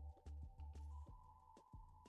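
Quiet background music, with held high notes over a bass line that comes in short repeated notes.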